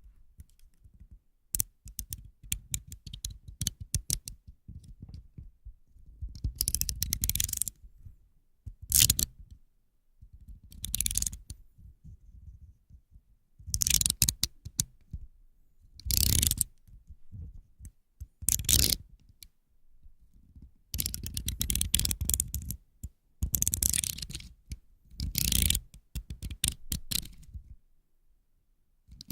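Box cutter (utility knife) blade being worked: runs of small, quick clicks alternate with louder rasping strokes lasting up to about a second, repeated about ten times.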